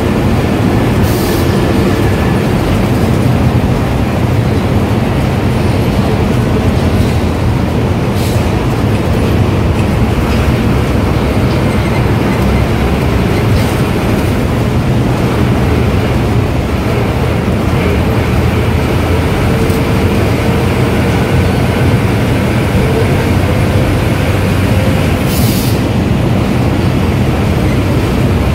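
Ashok Leyland diesel bus engine and road noise heard from the driver's cabin, a steady loud drone while cruising through a road tunnel. A few short rattles come through, about a second in, near the middle, and near the end.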